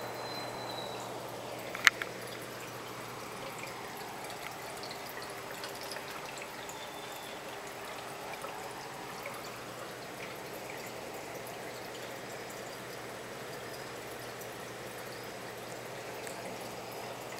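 Reef aquarium water circulation: a steady trickle of water over a faint low hum. About two seconds in there is one sharp, loud click.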